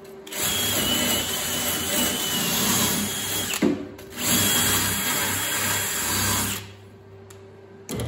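Cordless drill spinning a small wire cup brush against welded sheet steel, scrubbing off leftover paint. It makes two runs of a few seconds each with a short pause between, with a steady high whine. A single knock comes near the end.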